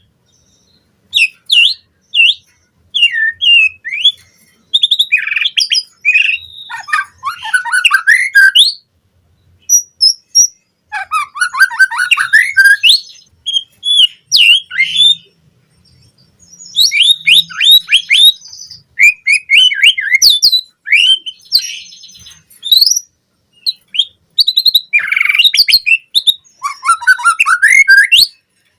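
White-rumped shama (murai batu) singing a loud, fast, varied song of whistles, chirps and trills. It comes in bursts of one to three seconds with short pauses between them.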